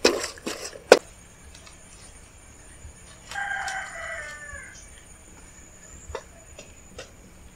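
A wooden spatula scrapes through beetroot and melting jaggery in a metal kadai, with a sharp knock against the pan about a second in. About three seconds in, a rooster crows once, a call of about a second and a half that falls at the end. A few light taps follow.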